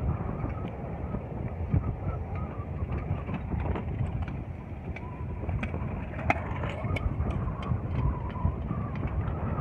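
Wind rumble on the microphone and rolling noise while riding a bicycle along a paved path, gusting and steady, with scattered light clicks and rattles.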